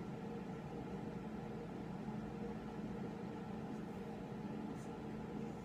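Steady room ventilation hum holding a few constant tones, with a faint dry-erase marker stroke on a whiteboard near the end.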